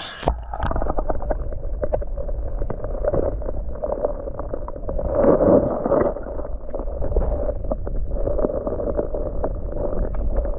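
Muffled water sloshing and splashing with many small clicks over a steady low rumble, as a spotted bass is released back into the river. The sound turns dull about a third of a second in, when the high end cuts off abruptly.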